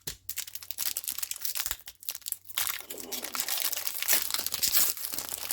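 A booster pack wrapper crinkling and crackling as it is handled and opened, a dense run of small crackles that gets louder in the second half.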